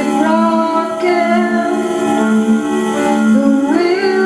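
Live music: a woman singing into a microphone over a held keyboard note. Her voice slides up and down in pitch, climbing near the end, while the low keyboard note pulses steadily underneath.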